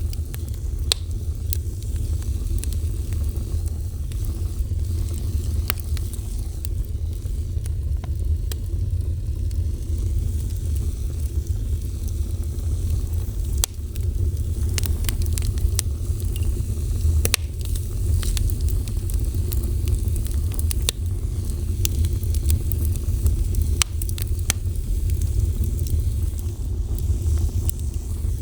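Fire burning with a steady low roar and many irregular sharp crackles and pops.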